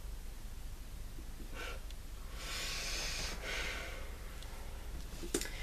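A person breathing through the nose: a short sniff, then a longer breath out lasting about a second, and a sharp click near the end.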